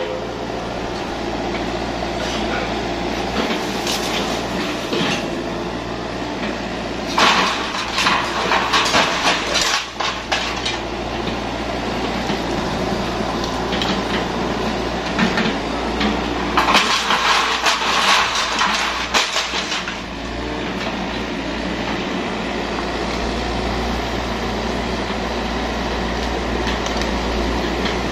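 Yanmar mini excavator's diesel engine running steadily, with two stretches of loud metallic clanking and clattering, about seven and seventeen seconds in, as the machine works and shifts on its steel tracks.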